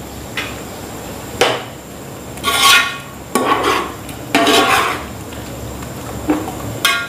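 Metal spoon stirring chicken in thick yogurt masala in an aluminium cooking pot. It scrapes and clanks against the pot in repeated short strokes about once a second, the wet mixture squelching between them.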